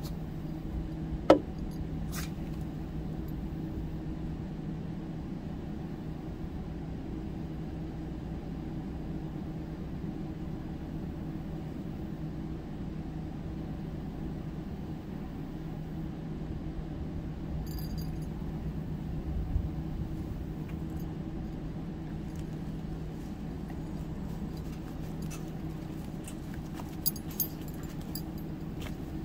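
A steady low hum with two even tones runs throughout. About a second in comes one sharp metallic clink with a brief ring, an aluminium soda can set down on a folding table. A few light clicks follow near the end.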